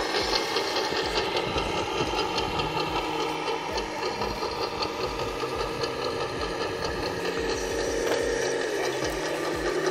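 Geared drivetrains of radio-controlled model trucks whirring, with a rapid, continuous clicking.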